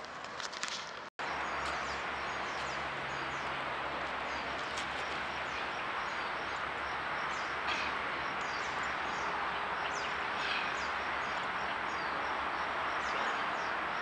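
Outdoor ambience: a steady background hiss with many small birds chirping through it. The sound cuts out for an instant about a second in.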